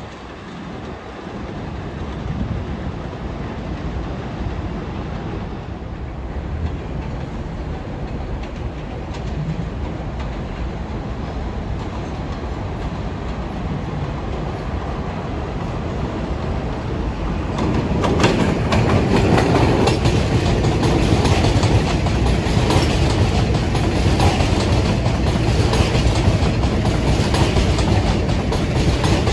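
R188 subway train running on the track, with wheels clacking over the rail joints. The rumble builds gradually and grows clearly louder about 18 seconds in.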